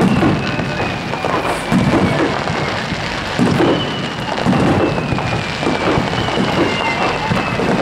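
Aerial fireworks shells bursting one after another: a string of deep booms about a second apart, with continuous crackling between them.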